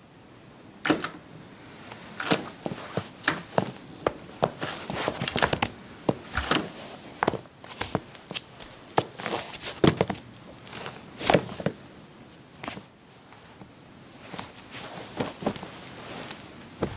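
Studio-recorded foley: an irregular run of knocks, clicks and thuds, sometimes several in quick succession, the sharpest about a second in and around ten and eleven seconds.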